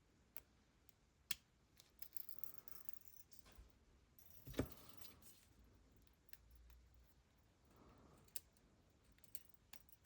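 Near silence broken by a few faint, scattered clicks and taps as small hand tools and the 3D-printed plastic parts of a mainspring winder are handled, the loudest about four and a half seconds in.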